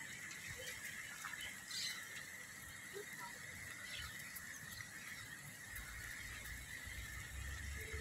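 Faint outdoor ambience: a few short, scattered squeaks and chirps from small animals over a steady high drone, with a low rumble building near the end.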